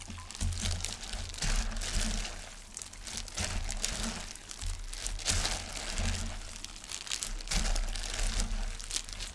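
Gloved hand tossing cooked somen noodles with young radish kimchi and seasoning in a stainless steel bowl: the plastic glove crinkles and the wet noodles rustle in irregular, repeated strokes, with dull low thumps as the hand works the bowl.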